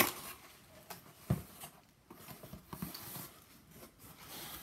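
A cardboard shipping box being opened and its contents handled: scattered rustles and small knocks, with a sharp knock at the start and a thump about a second in.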